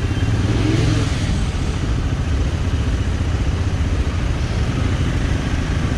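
Royal Enfield Himalayan motorcycle engine running steadily on the move, a dense low pulsing under a steady haze of road noise.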